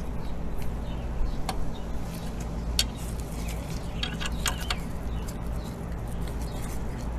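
Scattered light clicks and taps of hand tools and metal parts while adjusting a motorcycle's gear shift lever and linkage, over a steady low hum.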